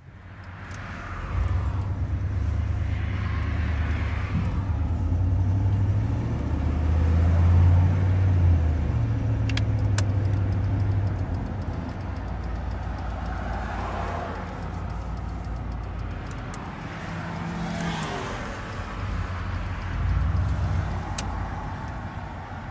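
Chevy C1500 pickup's engine heard from inside the cab while driving. Its low note comes up about a second in, is loudest as the truck pulls away, and eases to a steadier cruise after about ten seconds.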